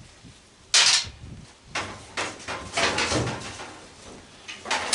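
Clanking and rattling of gas cook stove parts being handled during teardown: a sharp clank about a second in, a run of lighter clatters, then another clank near the end.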